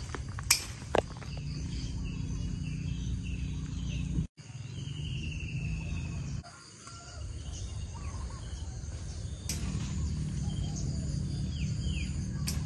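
Outdoor rural ambience: birds chirping and insects calling over a steady low rumble, with two sharp clicks in the first second. The sound cuts out briefly about four seconds in.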